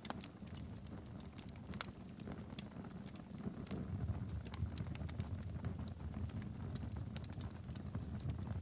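Fireplace fire burning steadily: a low rumble of flames with frequent sharp, irregular crackles and pops.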